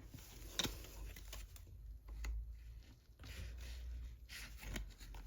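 Faint scraping and scattered clicks of a prying tool working under the edge of a Samsung tablet's glued-down screen, with one sharper click a little over half a second in.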